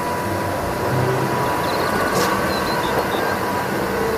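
Diesel engine of a MAN concrete mixer truck running steadily, with street noise around it.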